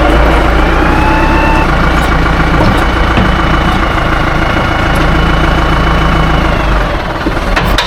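Tractor engine running steadily, with a brief sharp knock near the end.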